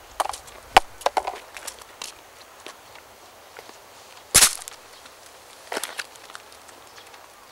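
Footsteps and scuffs on a path of stone slabs and pebble gravel, a few sharp knocks close together in the first second or so. About four seconds in comes a single sharp knock, the loudest sound, and near six seconds a short crackle as a paper drink carton is picked up off the stone.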